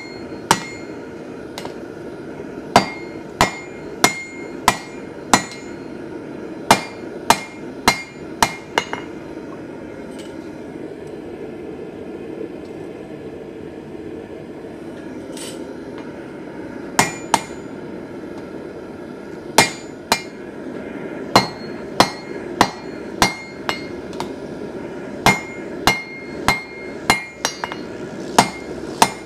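A 3-pound (1.5 kg) blacksmith's hammer striking on an anvil in runs of several quick blows, each blow with a short metallic ring. Near the middle the hammering pauses for several seconds, leaving a steady low hum.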